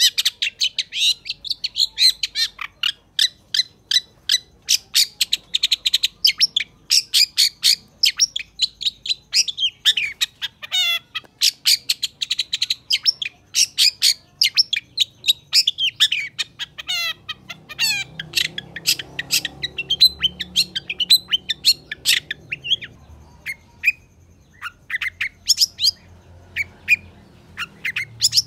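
Long-tailed shrike (cendet) in full, vigorous song: a fast, unbroken run of short, sharp, high notes, with two quick rattling trills around the middle.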